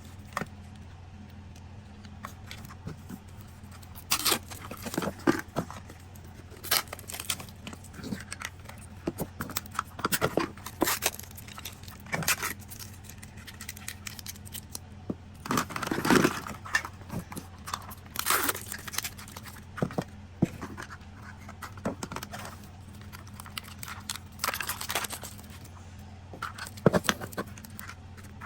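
Plastic packaging being torn and crinkled, with irregular clicks and rattles of small plastic pieces, as Mini Brands toy capsules are unwrapped and opened. A faint steady low hum lies underneath.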